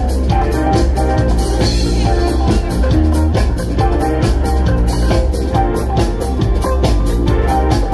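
Live band playing an instrumental jam over a large PA: drum kit keeping a steady beat under bass, electric guitar and keyboards.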